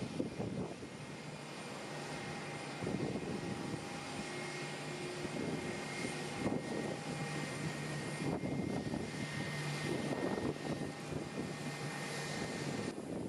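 Airliner engines running, a steady rush of engine noise with a constant high whine over a low hum.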